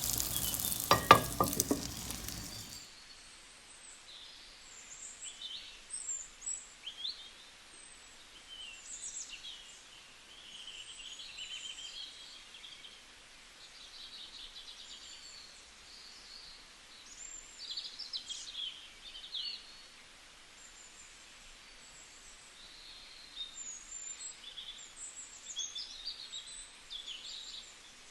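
A pan sizzling with a couple of sharp clicks, which cuts off suddenly about three seconds in. Then a quiet background with many short bird chirps.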